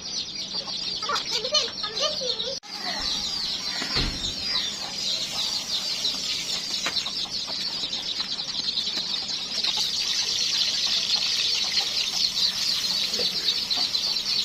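A flock of desi chickens calling, a steady dense chatter of many high chirps with clucks mixed in.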